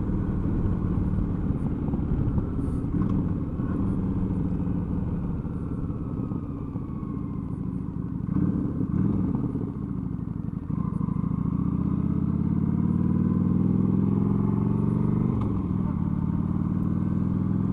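Motorcycle engine running at road speed, heard from the rider's position, with wind noise. About ten seconds in it suddenly gets louder and its note then climbs gently, as the bike accelerates.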